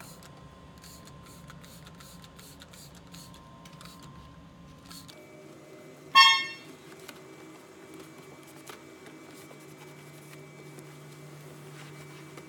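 Toyota car horn sounding once in a short, loud toot as the horn pad in the steering wheel is pressed while being wiped. Before it comes a run of quick, short spray-bottle bursts.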